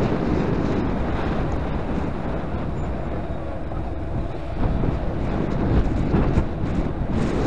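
Wind buffeting the microphone of a bicycle-mounted camera while riding, over road traffic noise. A van passes close alongside around the middle, and the noise swells briefly.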